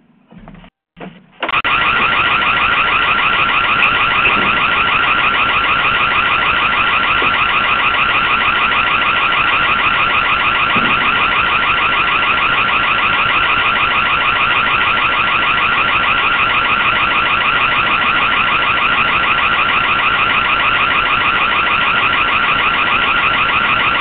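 Ring Floodlight Cam's built-in siren sounding loud and close. It is an electronic tone that pulses fast, cuts in suddenly about a second and a half in, and then holds steady.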